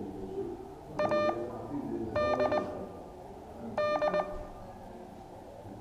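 Morse code (CW) practice tone: a mid-pitched, buzzy beep keyed in three short clusters of dits and dahs about a second or more apart, spelling out a word letter by letter.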